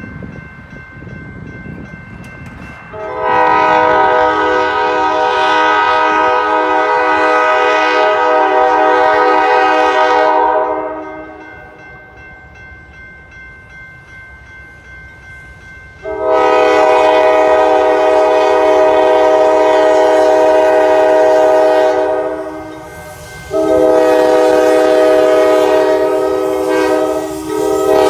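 Diesel locomotive's multi-note air horn sounding for a grade crossing: two long blasts, a shorter one, then another long one, the standard crossing signal as the train approaches.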